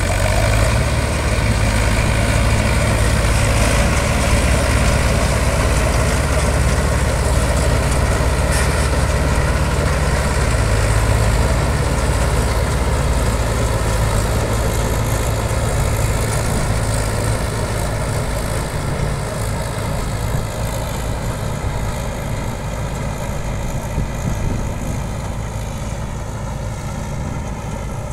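Balkar B-525 combine harvester running steadily while cutting ripe paddy at full speed, a continuous engine and machinery hum. It grows fainter over the last third as the machine moves away.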